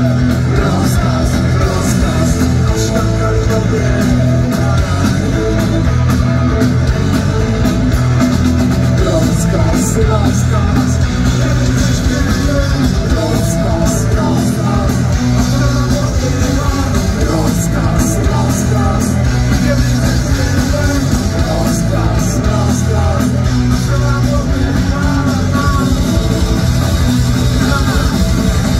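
Rock band playing live, loud and steady: electric guitars, bass guitar and drums with frequent cymbal crashes, and a singer's voice in the mix.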